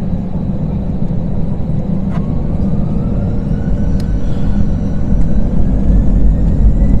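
Airliner jet engines on the take-off roll: a heavy, steady rumble with a thin whine that climbs steadily in pitch from about two seconds in as the engines spool up.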